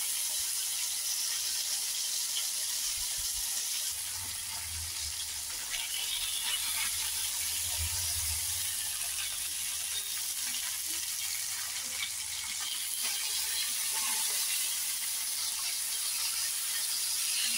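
Skewered mutton boti kababs sizzling in oil on a hot tawa: a steady hiss with fine crackling.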